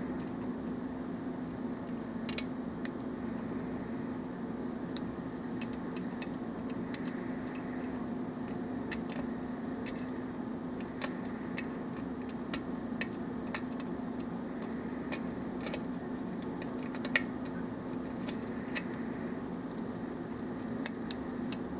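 Irregular small metallic clicks and ticks from a lock pick working the pin stack of a Russwin lock cylinder under tension, with a steady low hum behind it.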